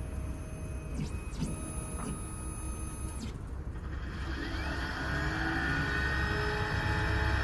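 Keyline Gymkhana 994 computerized key-cutting machine at work: short motor moves and light clicks as it touches off on the key, then about four seconds in the cutter motor spins up with a rising whine and runs steadily.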